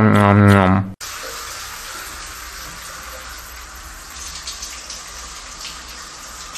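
A wavering, rising-and-falling pitched call cuts off abruptly about a second in; then a steady hissing rush like running water from a tap.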